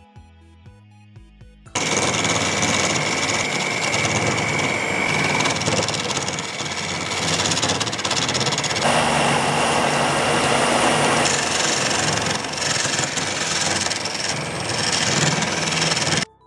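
Homemade drill-powered wood lathe turning a wooden blank while a turning chisel cuts into it: the drill motor whines under a dense, rough cutting noise. It starts suddenly about two seconds in and stops abruptly near the end, with soft background music before it.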